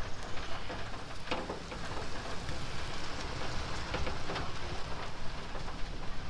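Steady rumble and hiss of an open tour tram in motion, with a few scattered knocks.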